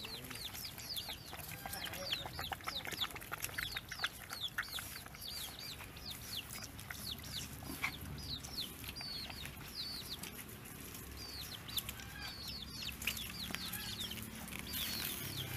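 Small animals peeping continuously: rapid, high-pitched calls, each sliding downward, several a second.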